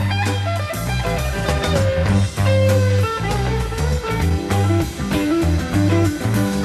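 Live psychedelic rock band playing: electric guitar lines over bass guitar and drum kit.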